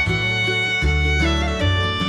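Background music led by a violin melody, with long held notes over a low bass line that changes note every second or so.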